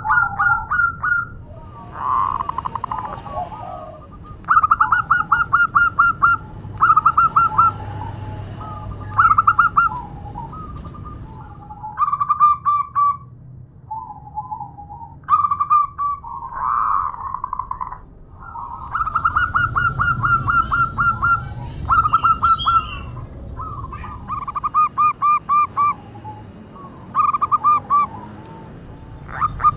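Female zebra dove (perkutut) calling for a male: repeated bursts of rapid staccato cooing notes, each burst a second or two long, with short pauses between.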